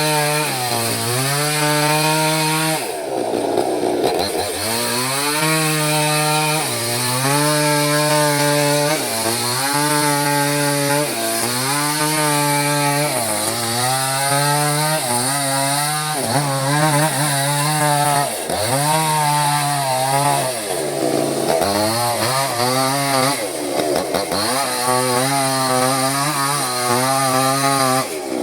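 Small chainsaw cutting lengthwise through mahogany at high revs. The engine pitch sags and recovers about every two seconds as the chain is loaded in the wood and eased off.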